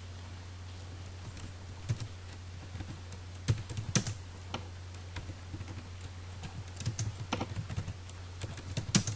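Typing on a computer keyboard: irregular clusters of key clicks, quickest near the middle and toward the end, over a steady low hum.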